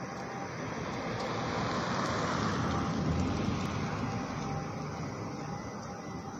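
Road traffic noise: a steady rush that swells to its loudest about halfway through and then eases off.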